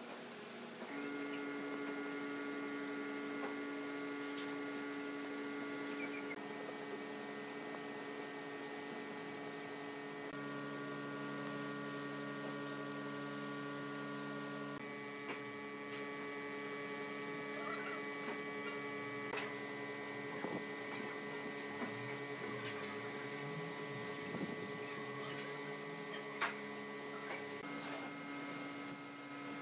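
A steady hum of several held tones over a faint hiss, with the set of tones shifting a few times. Faint scattered ticks come in the second half.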